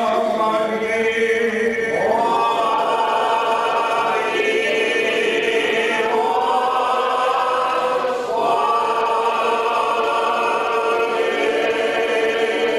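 Orthodox church choir singing a liturgical hymn a cappella in held chords. One low note is sustained underneath while the upper voices move, and new phrases begin about two seconds in and again about eight seconds in.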